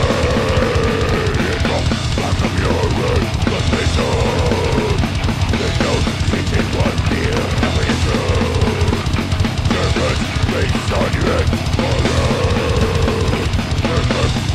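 Death metal band playing live: distorted electric guitar and bass over a drum kit with fast, dense bass-drum and cymbal strokes. A wavering phrase repeats about every four seconds.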